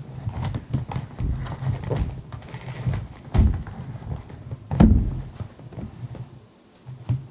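Irregular knocks and thumps from handling, two of them louder around the middle, over a steady low hum that drops out briefly near the end.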